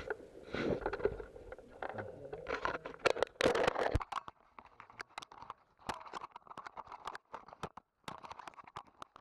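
Movement and handling noise from an airsoft player's rifle and gear: rustling and scraping with scattered sharp clicks and taps. About four seconds in the sound drops away abruptly, leaving only sparse faint clicks.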